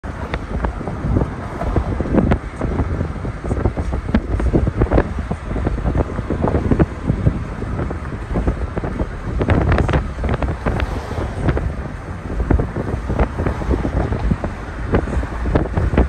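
Wind buffeting the microphone: a loud, irregular low rumble that swells and drops in gusts, with crackles. Road traffic noise runs underneath.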